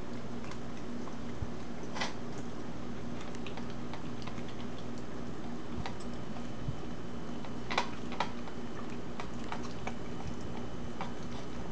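Corgi eating raw vegetables from a plate: scattered, irregular crunches and clicks, the loudest about two seconds in and a close pair near eight seconds. A steady low hum runs underneath.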